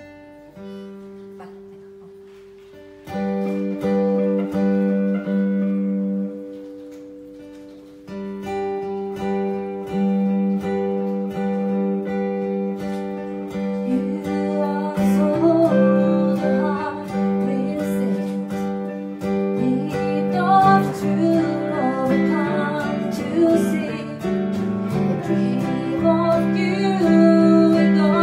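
Acoustic and electric guitar starting a song: a chord rings out at first, then louder strummed chords come in about three seconds in. A woman's voice starts singing about halfway through, over the two guitars.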